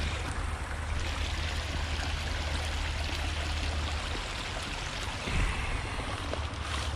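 Steady rush of rain-swollen water flowing at a dam.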